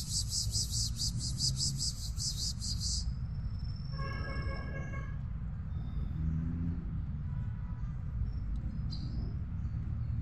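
Insect chirping in rapid high pulses, about five a second, that stops about three seconds in, over a steady low rumble; a single short call about four seconds in and faint scattered chirps follow.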